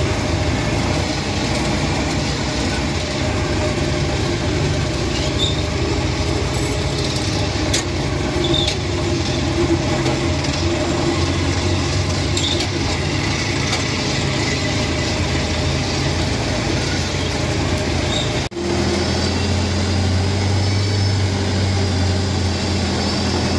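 Engine of a loaded tracked rice-hauling carrier running steadily as it crawls along a dirt track. A brief drop-out near the end, after which the engine note sounds deeper and heavier.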